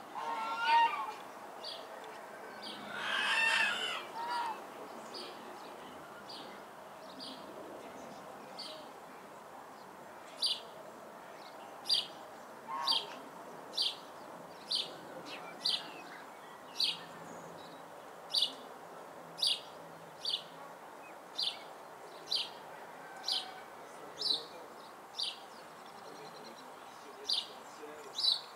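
Birds calling: two louder, drawn-out calls in the first few seconds, then a small bird repeating one short, high chirp about once a second, over a faint steady hiss.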